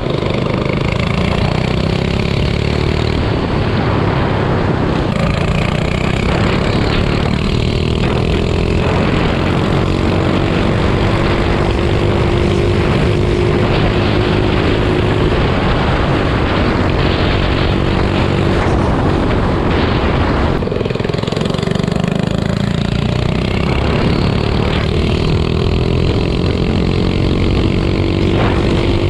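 Minibike engine running steadily while being ridden. Its pitch climbs slowly as it gathers speed, drops back about two-thirds of the way through, then climbs again.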